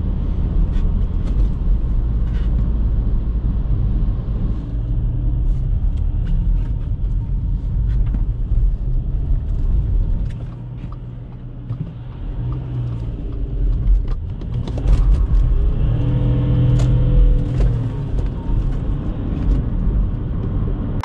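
2008 Audi A4 B8's 3.0 TDI V6 diesel engine pulling under way, heard from the cabin with road and tyre rumble. The engine note drops off about ten seconds in, then builds again and is loudest, with a clear engine tone, a few seconds later before easing near the end.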